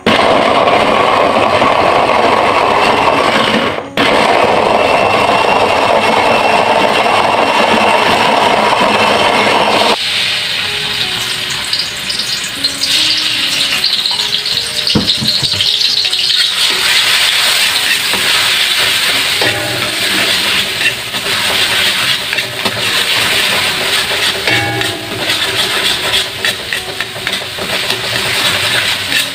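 Small electric chopper blending shallots, garlic and chilies into a spice paste: its motor runs for about ten seconds with a brief stop around four seconds in, then cuts off. After that, the paste sizzles in hot oil in an aluminium wok while it is stirred with a wooden spatula.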